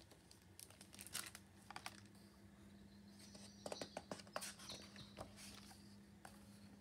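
Faint paper rustles and light taps as a hardcover picture book is opened and its stiff pages are turned by hand. The rustles come in a cluster about a second in and again around the middle.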